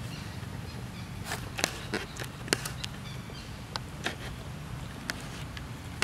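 A run of irregular sharp clicks and crackles, about nine of them, starting about a second in and thinning out near the end, over a steady low background hum.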